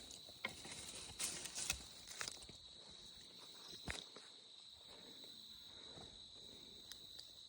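Faint steady chirring of insects, with scattered rustles, snaps and footsteps of someone pushing through thick brush, the brush sounds clustered in the first four seconds.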